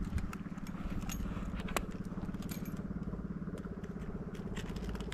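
A motor running steadily in the background, with scattered light clicks and ticks over it.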